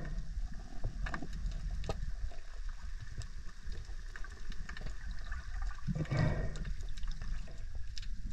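Underwater sound picked up through an action camera's waterproof housing: a steady, muffled low rumble of moving water with scattered small clicks. About six seconds in there is a louder swell of water noise.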